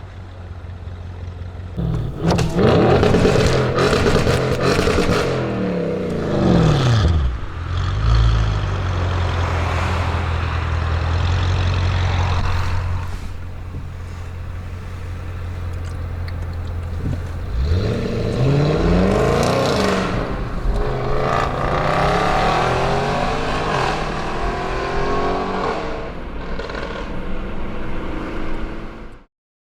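Twin-turbo 4.0 V8 of an ABT Audi RS6 Avant C7 through a Milltek exhaust, its revs rising and falling twice with a steady lower engine note in between.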